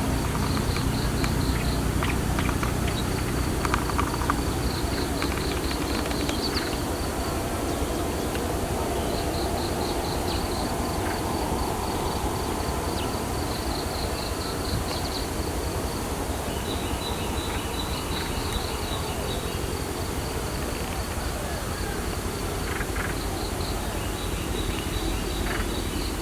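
Insects chirping in rapid pulsed trills, repeating on and off, over a steady low outdoor rumble.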